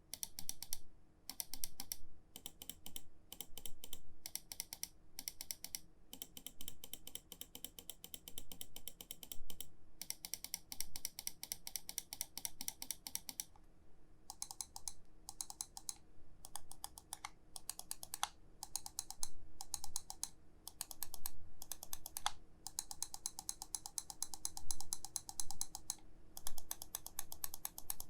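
VAXEE ZYGEN NP-01S wireless gaming mouse buttons being clicked rapidly, many crisp clicks a second in runs separated by short pauses. About halfway through, the clicks change in tone.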